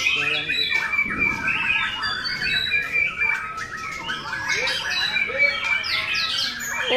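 Several caged white-rumped shamas singing at once: dense, overlapping rapid chirps and whistled phrases without a break.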